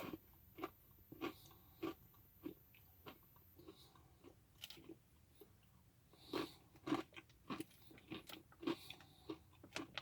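A person chewing a crunchy, peanut-butter-coated pretzel bite: a run of crisp crunches about every half second, which thin out near the middle and pick up again.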